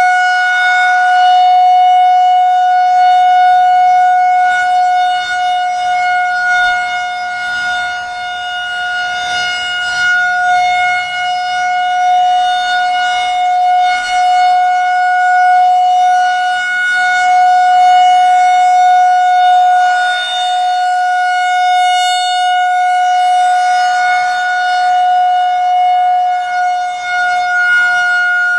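Federal Signal 2001-130 rotating outdoor warning siren sounding a steady full-alert tone, one unchanging pitch with rich overtones. Its loudness swells and fades slowly as the rotating head sweeps past.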